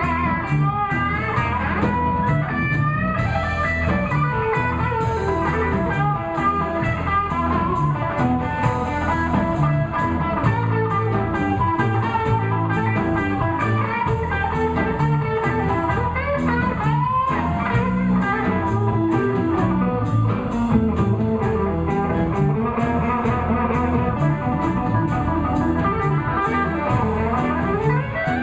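Live blues band playing an instrumental break: an electric guitar solo with bent notes over bass and drums, a cymbal keeping a steady beat.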